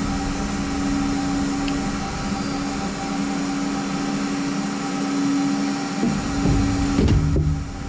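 Steady mechanical hum from a running machine such as a fan or air-conditioning unit, holding one low tone. A few light knocks come near the end as alternator parts are handled and a part is set into the casing.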